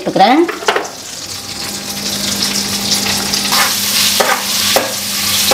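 Butter and cooking oil sizzling in a hot pan, the frying hiss growing louder, with a few short knocks or scrapes of a utensil in the second half.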